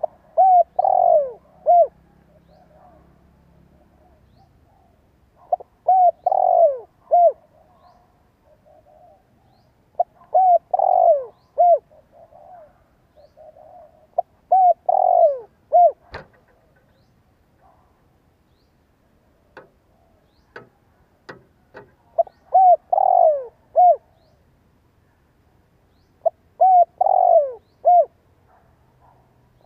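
A spotted dove cooing: a short phrase of four or five falling coos, repeated about every four seconds, six times. A handful of sharp clicks sound in a gap between phrases.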